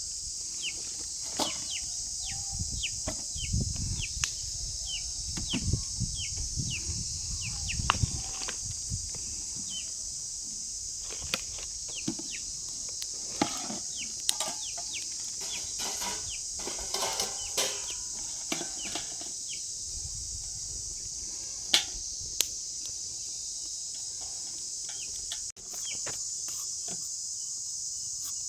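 Steady high-pitched drone of an insect chorus, with many short bird chirps and clucks scattered over it and a few low rumbling knocks in the first several seconds.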